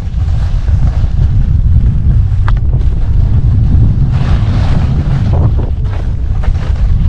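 Wind rumbling hard on a skier's camera microphone while skiing downhill, with skis hissing over packed, groomed snow, most clearly from about four seconds in.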